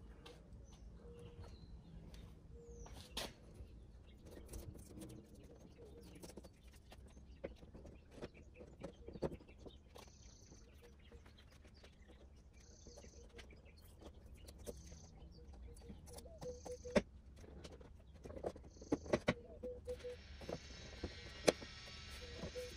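Outdoor ambience: birds chirping now and then over a low rumble, with scattered clicks and knocks of someone working around a pickup truck's bed. A steady hiss comes in near the end.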